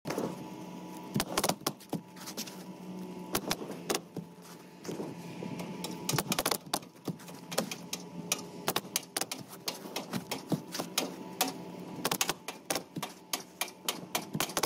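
Rapid, irregular clicks and taps of roofing work on asphalt shingles, some coming in quick clusters, over a steady hum.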